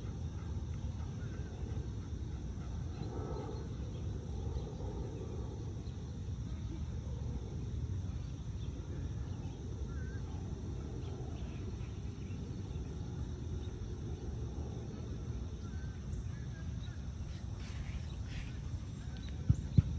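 Outdoor field ambience: a steady low rumble with a faint, steady high insect drone over it, and two brief knocks near the end.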